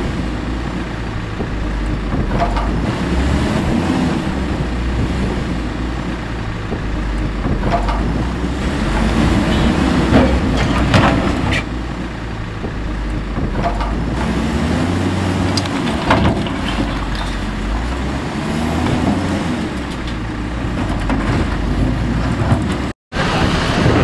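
Heavy diesel engines of a JCB wheel loader and a backhoe loader running and revving while demolishing, with several sharp knocks and clanks.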